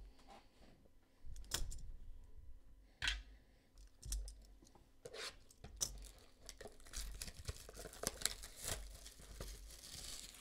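A football trading card pack being torn open, its wrapper crinkling as the cards are handled: a run of short, irregular tearing and rustling noises with scattered clicks.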